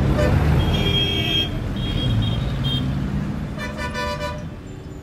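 Street traffic: engines rumbling, with several short vehicle-horn toots, the loudest one near the end.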